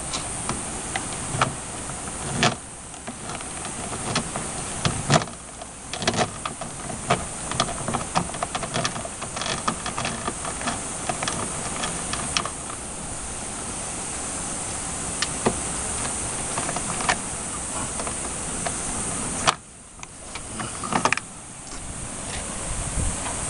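Small hand ratchet clicking in quick runs as the door mirror's mounting nuts are backed off, over a steady high hiss.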